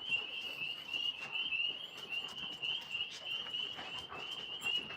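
Frog chorus: a steady, pulsing high trill, with a few faint ticks over it.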